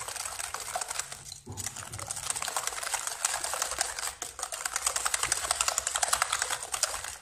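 Plastic balloon whisk beating a thin egg, sugar and orange-juice mixture in a glass bowl: rapid, steady clicking of the tines against the bowl, with a brief pause about a second and a half in.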